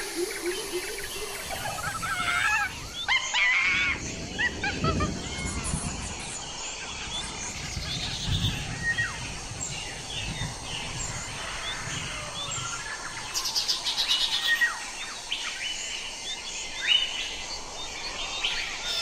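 Several wild birds chirping, whistling and trilling in overlapping calls over a steady background hiss.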